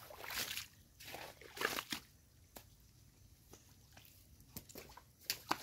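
A hoe chopping into and dragging wet mud, squelching and sloshing in a few strokes during the first two seconds, with sharper clicks near the end.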